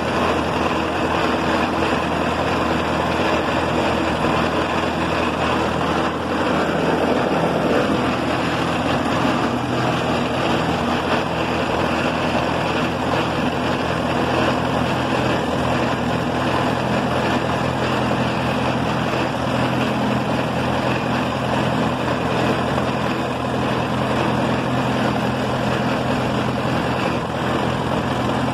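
1936 Case CC tractor's four-cylinder engine running steadily while driving at an even road speed, heard close up from the driver's seat beside its straight exhaust stack.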